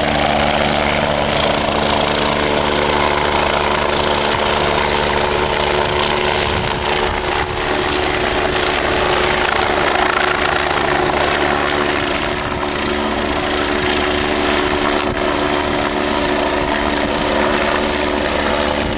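An engine running steadily at a constant pitch, a low hum with a strong noisy rush over it.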